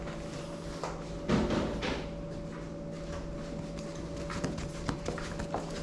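A steady low hum with a few scattered light knocks and clicks.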